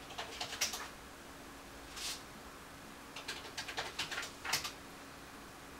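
Calculator keys clicking in quick runs as a column of check amounts is added up a second time to confirm the total, with a brief swish about two seconds in.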